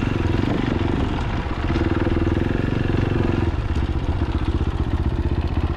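Fantic Caballero 500's single-cylinder engine running steadily under way, its note shifting a couple of times as the throttle changes.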